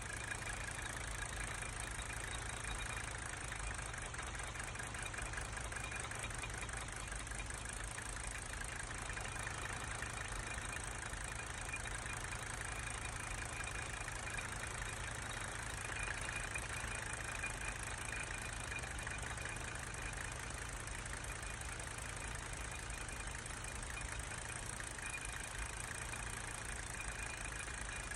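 Mercedes-Benz diesel engine idling with a steady clatter while its injector line nuts are cracked open one at a time with a wrench. This is a cylinder balance test to find a dead cylinder.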